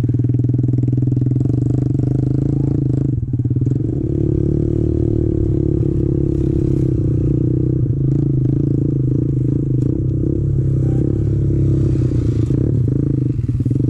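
Kawasaki KLX110 pit bike's small single-cylinder four-stroke engine running steadily under throttle while being ridden, with brief dips about three seconds in and again near the end.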